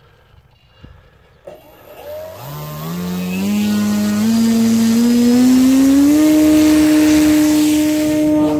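Electric motor and two-blade propeller of a 2 kg 3D-printed RC Spitfire spinning up: a whine that starts about two seconds in and rises in steps for about four seconds, then holds steady at full throttle, ready for a hand launch.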